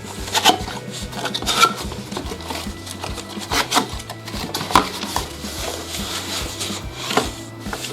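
Packaging of a new motorcycle air filter element being opened and handled: irregular rustling, scraping and small clicks and knocks.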